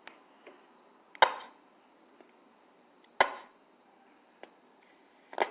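Slime being slapped or popped against a table: three sharp smacks about two seconds apart, each fading quickly.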